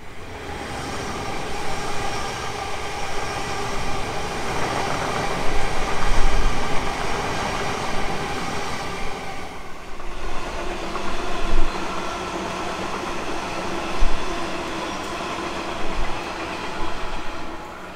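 Electric suburban trains passing at speed: a steady rush of wheels on rail with a humming motor tone and a few sharp clacks. The sound breaks briefly about ten seconds in, and then a second train passes.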